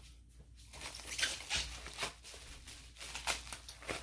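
Handling noise: rustling and crinkling of packing material with a few sharp clicks.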